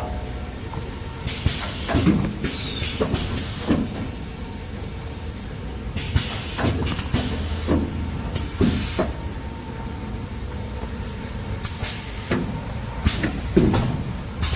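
Kitchen-towel bundle packing machine running: a steady mechanical hum with short hissing bursts, repeated irregularly every second or few seconds.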